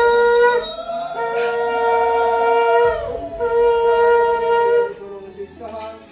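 Conch shell (shankha) blown in long, steady, loud blasts, the pitch bending at the end of each: one ends just after the start, two more follow, and a weaker short one comes near the end.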